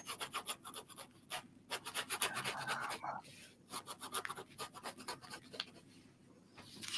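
Ballpoint pen drawing on paper: faint, quick, scratchy strokes, many in a row, denser about two to three seconds in.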